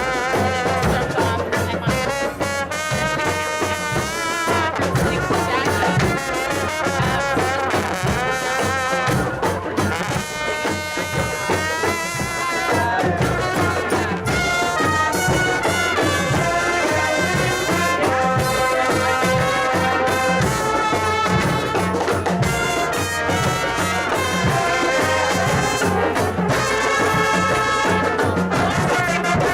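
Live brass marching band playing, trumpets and trombones carrying the tune over drums with a steady beat.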